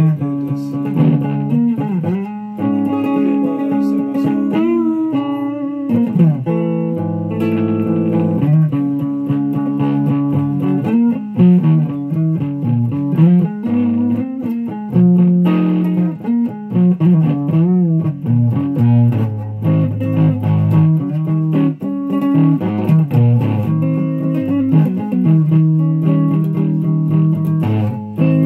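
Electric guitar played through a Fuzz Face fuzz pedal on a run-down battery, a fuzz tone the player calls horrible. The lines are full of string bends and vibrato, with notes wavering up and down in pitch.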